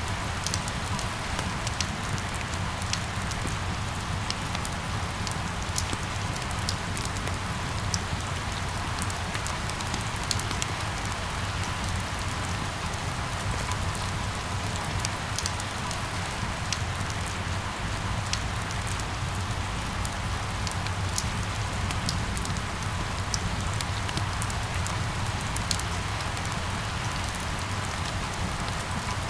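Steady rain falling on hard surfaces, with many individual drops ticking close by over an even hiss and a low, constant rumble beneath.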